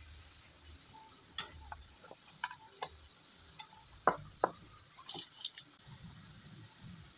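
Scattered light clicks and taps of small electronic components being handled and set down on a wooden circuit board, with two sharper clicks about four seconds in.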